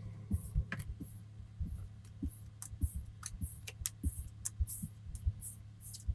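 Trading cards being picked up off a wooden tabletop and stacked in the hand: repeated light taps and brief papery slides, over a steady low hum.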